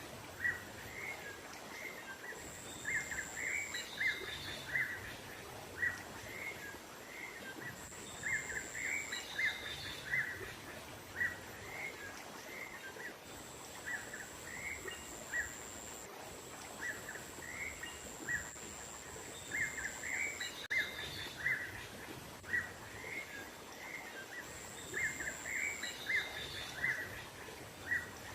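Small songbirds calling in quick series of short, sharp chirps, used as a bird-luring call, over a steady outdoor noise bed. A thin, high steady tone sounds on and off behind the chirps.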